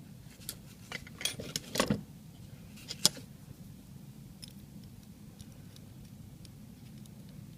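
Small metal clicks and clinks of a screwdriver and lock parts being handled: a cluster of clicks in the first two seconds and one sharper click about three seconds in, then only faint scattered ticks.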